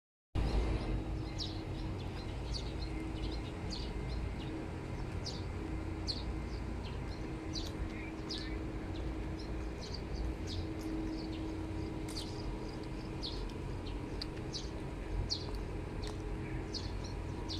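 Small birds chirping, short high chirps repeating irregularly one or two a second, over a steady low outdoor rumble with a faint steady hum.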